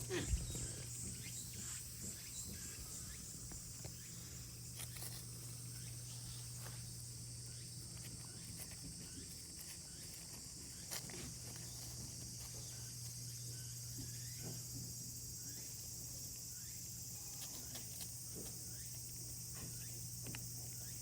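Steady high-pitched drone of insects in summer, with scattered soft knocks and rustles and one louder thump just after the start.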